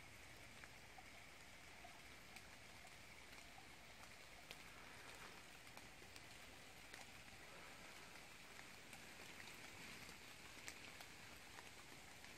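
Near silence: a faint steady hiss with scattered soft ticks of water dripping.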